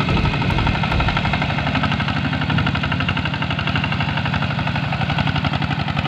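Two-wheel walking tractor's single-cylinder diesel engine chugging steadily with a rapid, even knock while it pulls a trailer loaded with rice sacks across a muddy paddy field.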